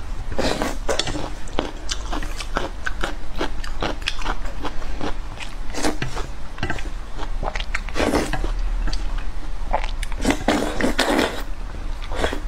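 Close-miked noodle eating: long wet slurps of noodles, loudest about half a second in, around eight seconds and again between ten and eleven seconds, with lip smacks and chewing clicks between them.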